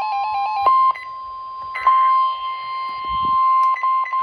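NOAA Weather Radio warning alarm tone: a loud, steady single-pitch beep near 1050 Hz, broken by a few short gaps. Less than a second in it takes over from a lower-pitched pulsing beep. It signals that a new warning message is about to be broadcast.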